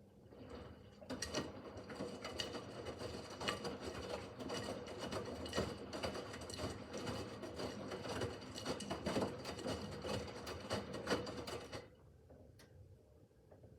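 Miele W5801 WPS front-loading washing machine's drum turning through a wash cycle for about eleven seconds: motor hum with a dense clatter of laundry tumbling and knocking inside. It starts about a second in and stops suddenly near the end as the drum pauses.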